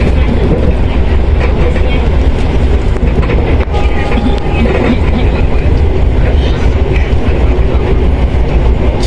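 Passenger train running along the track, heard from inside the carriage: a loud, steady low rumble of wheels and carriage, with a brief faint tone about four seconds in.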